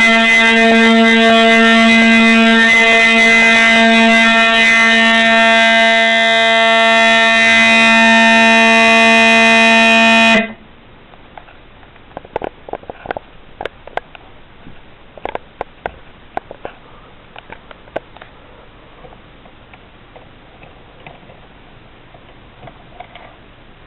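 Fire alarm sounder giving a loud, steady, buzzy horn-like tone under test. It cuts off abruptly about ten seconds in, leaving scattered faint clicks and taps.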